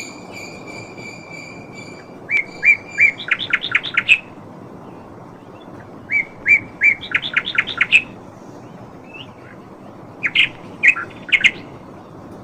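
A songbird singing three phrases about four seconds apart, each a few spaced notes that speed into a quick run of chirps. A steady held whistle-like tone fills the first two seconds, over a constant low background hiss.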